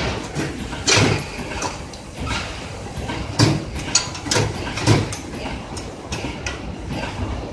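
Roll bag cutting machine running, with sharp mechanical clacks at uneven spacing over steady machine noise.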